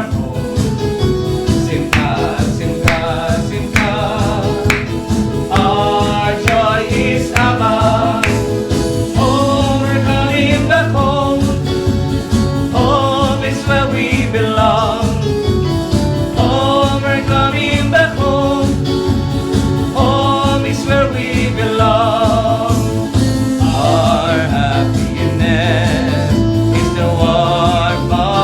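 Gospel worship song: several voices singing with vibrato over instrumental accompaniment with a steady beat.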